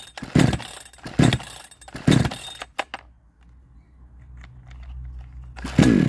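62cc Chinese two-stroke chainsaw being pull-started: the recoil starter cord is yanked three times in quick succession, each pull a whirr that falls in pitch as the engine turns over without firing, then one more pull near the end. The engine does not catch, which the owner puts down to a weak spark and timing that is too far advanced.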